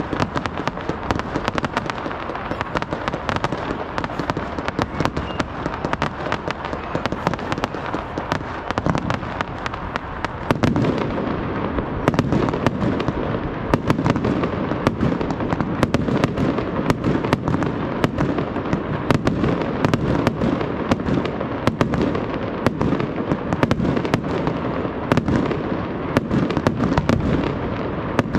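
Aerial fireworks display: a rapid, continuous stream of bursting shells with many overlapping bangs and crackles, growing louder and fuller about ten seconds in.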